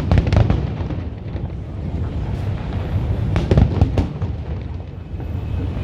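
Fireworks bursting: a cluster of sharp cracks right at the start and another about three and a half seconds in, over a continuous low rumble of shells going off.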